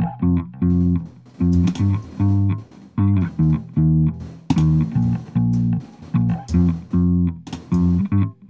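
Electric bass part playing the same short phrase of plucked notes over and over. The bass runs through an amp simulator with a low cut at about 40 Hz.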